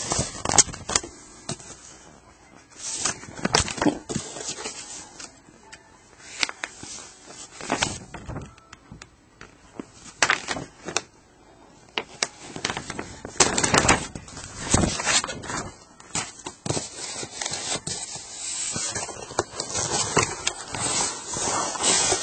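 Irregular crackling, rustling and knocking as packing materials, papers and cables are handled close to the microphone.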